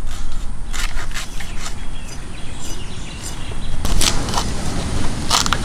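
Scattered crisp cuts and snaps of hand blades going through taro stems and hilsa fish, a few sharp clicks over a low steady rumble.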